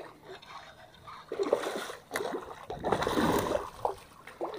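A hooked snook thrashing at the surface, its splashing coming in two bursts, about a second and a half in and again around three seconds.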